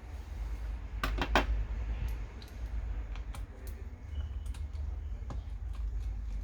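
Scattered small clicks and taps of hard objects, with a quick cluster of several about a second in, over a steady low hum.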